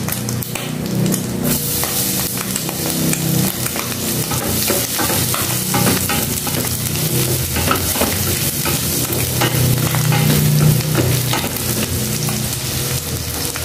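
Chopped garlic sizzling in hot oil in a pan, stirred and scraped with a wooden spatula. The sizzle jumps up about a second and a half in, as the garlic goes into the oil.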